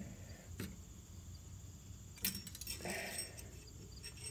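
Quiet handling of an engine oil dipstick in its tube: a light click under a second in, a cluster of clicks a little past two seconds, then a brief scrape, over a low steady background hum.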